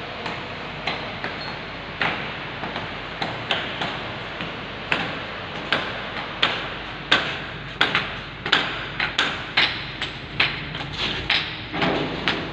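Hand tools knocking and scraping on a concrete floor as it is chipped and scraped clean of debris: irregular sharp knocks about one to two a second over a steady scraping noise.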